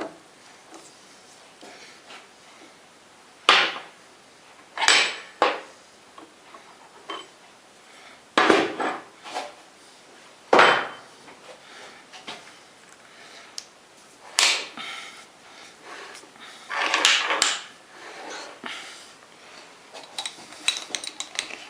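Intermittent clatter and scraping of metal tools and parts being handled at a workbench, in separate short bursts with pauses between, while the lathe motor is off.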